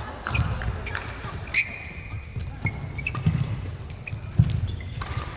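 Badminton rally: rackets striking the shuttlecock in sharp clicks, sports shoes squeaking briefly on the court mat, and footfalls thudding as the players move.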